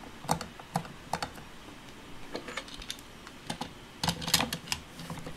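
Hard plastic clicks and taps from a Play-Doh ice-cream toy's sprinkle maker being handled, as its top piece is fitted onto the cylinder. Irregular single clicks, with a quick cluster of them about four seconds in.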